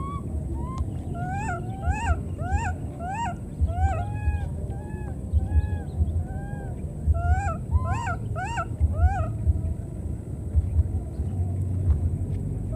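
Baby macaque crying: a run of short, high, arching squeals, about two a second, some of them drawn out and level, stopping after about nine seconds. A low rumble runs underneath.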